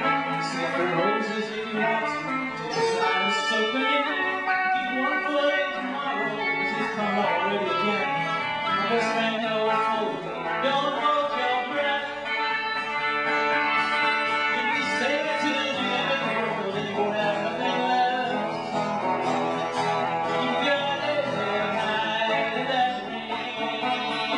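A folk song performed live: a guitar played with a melody line carried over it.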